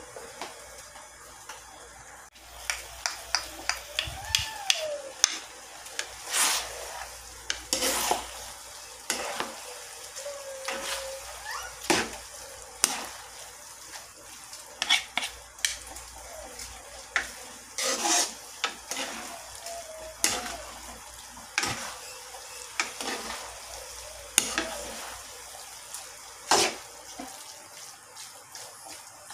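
A metal spoon and a wooden spatula stirring and tossing sauced palabok noodles in a metal pan, with irregular clinks and scrapes of the utensils against the pan. A light sizzle from the hot sauce runs under it from about two seconds in.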